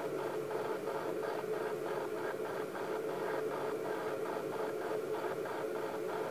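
Steady machine hum with a fast, even pulsing, about four or five pulses a second.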